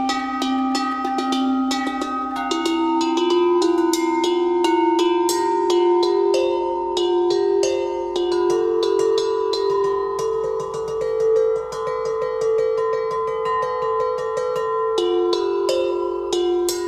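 Several cowbells ringing together, struck irregularly many times with overlapping notes at different pitches.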